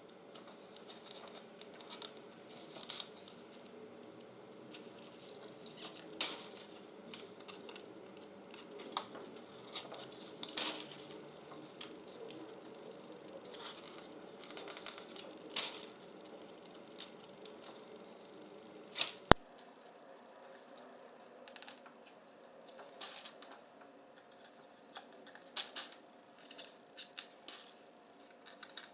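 Scissors snipping through foam plates in short, irregular cuts, with handling rustles between them. One sharp click comes about two-thirds of the way through.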